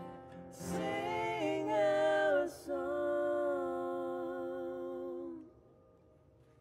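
A singing voice closing the song acoustically, with two wordless phrases, the second a long held note, over the last strum of an acoustic guitar ringing out. It all fades away a little past five seconds in.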